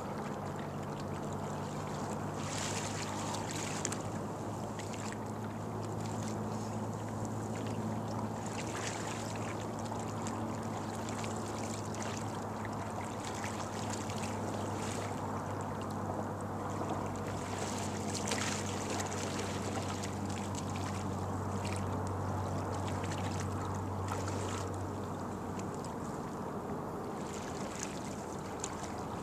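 Stand-up paddle strokes in calm water: a splash and swish of the blade every few seconds, over a steady low hum that stops near the end.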